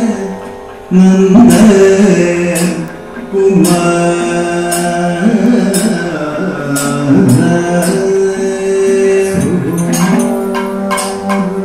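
Live Kathakali music: a male singer sings a padam in long melismatic phrases, accompanied by maddalam drum strokes and struck percussion. The strokes grow denser near the end.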